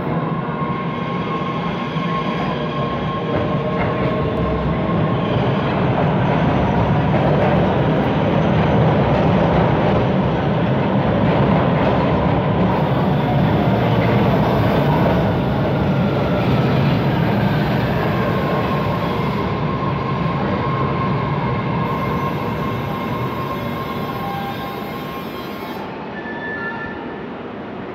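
MBTA Red Line subway train pulling into an underground station, its wheel and motor noise growing to its loudest as the cars pass, then dying down as it slows to a stop. Thin high wheel tones run through the noise.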